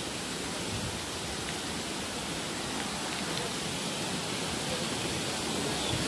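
Steady rush of a mountain stream cascading over rocks, growing slightly louder toward the end.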